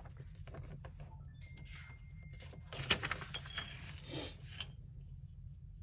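Sheets of scrap paper rustling and sliding on a tabletop as they are handled and laid down, with a few light clicks and taps, the sharpest about three seconds in and again a little later.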